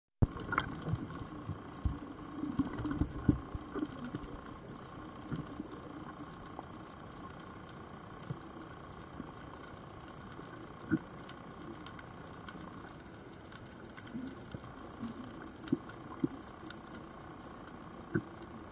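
Underwater ambience: a steady hiss with a faint steady high whine, scattered sharp clicks and crackles, and a few louder low knocks in the first few seconds.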